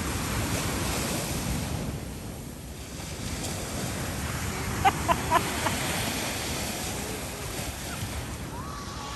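Ocean surf washing on the shore with wind buffeting the microphone, the wash easing for a moment about two seconds in, and a few short high chirps about five seconds in.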